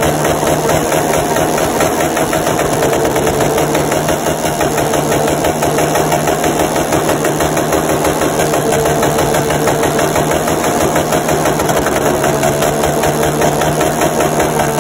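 Suzuki underbone motorcycle engine running loudly through an open racing exhaust, held at a steady throttle with no rise or fall in pitch.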